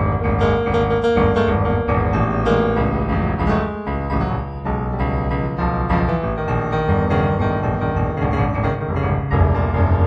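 Improvised piano music: a steady flow of notes over sustained low bass notes.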